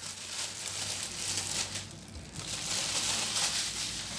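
Plastic wrap crinkling and rustling as it is handled, in an uneven stream with no distinct knocks.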